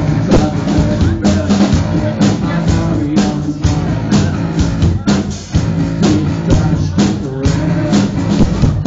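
A rock band playing live: a drum kit keeps a steady beat under electric guitar, with a man singing into a handheld microphone.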